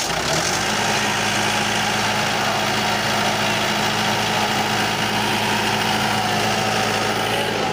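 Diesel generator set's multi-cylinder engine starting up and settling at once into a steady, even run.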